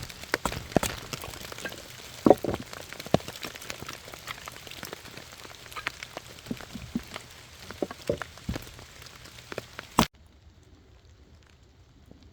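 Wood campfire crackling with many irregular sharp pops over a steady hiss. About ten seconds in it cuts off abruptly to a much quieter, even crackle and patter.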